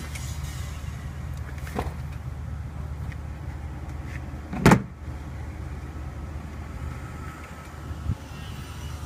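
Steady low hum, with a couple of light clicks and one sharp, loud knock a little past halfway.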